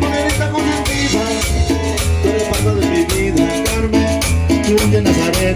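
Latin dance music played loud over a party sound system, with a steady bass beat, plucked-string melody and some singing.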